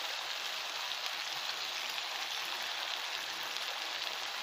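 Goat meat frying in oil and masala in a pan, sizzling steadily.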